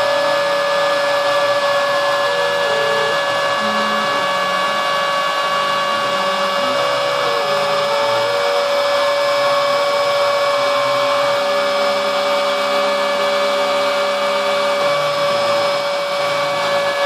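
Homebuilt drawer-slide CNC router carving wood: the router motor runs with a steady whine while the stepper motors hum underneath, their pitch stepping up and down as the bit moves along its path.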